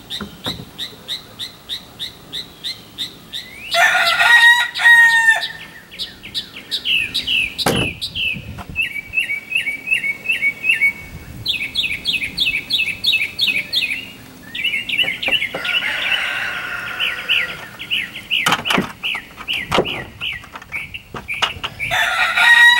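Birds calling: rapid runs of repeated chirps, with a louder, drawn-out call about four seconds in and again near the end. A few sharp knocks come in between.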